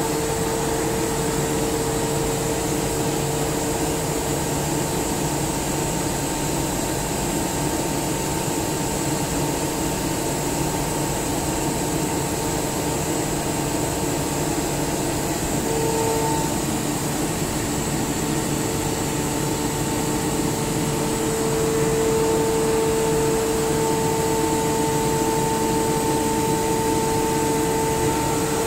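SCR Comp SCR50M rotary screw air compressor running: a steady machine hum with an even hiss and a humming tone. The tone fades out about a third of the way in and comes back stronger, slightly louder overall, past the two-thirds mark.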